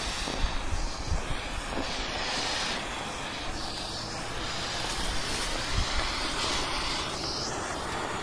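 Coloured smoke bomb burning with a steady hiss that swells and eases now and then, with wind buffeting the microphone.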